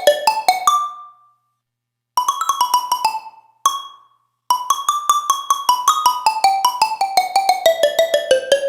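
Roland D-05 synthesizer playing a bright, mallet-like patch: quick runs of short struck notes. It breaks off twice for about a second, then plays a long fast run that steps down in pitch.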